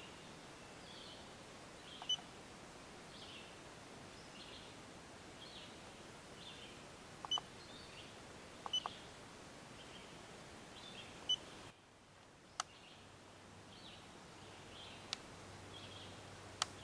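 Trail camera being set up by hand: about four short high beeps as its buttons are pressed, spread through the first dozen seconds, each with a small button click, then a few sharp clicks near the end. Faint insect chirping repeats throughout.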